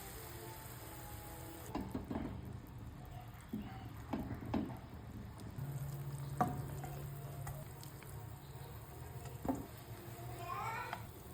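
Food cooking in a pan or pot, a faint sizzle with a handful of scattered knocks of a utensil against the pan as it is stirred.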